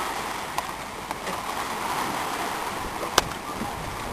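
Sea water washing at a beach, a steady rushing noise, with a few faint ticks and one sharp click about three seconds in.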